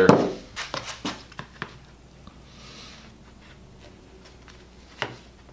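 Quiet hand-stitching of a leather sheath: a few faint clicks in the first second and a half, a soft hiss of thread being drawn through the leather about halfway through, and one sharper click near the end.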